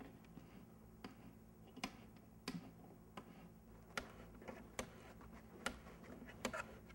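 Allen wrench turning a bolt into a telescope base panel: about eight faint metal clicks, a little under a second apart, as the key is turned and re-gripped.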